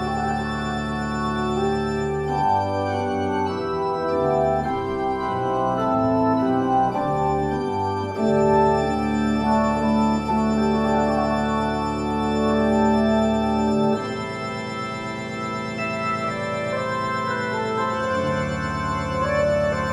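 Organ music: slow, sustained chords over long-held bass notes, the bass dropping out for a few seconds about two-thirds of the way through.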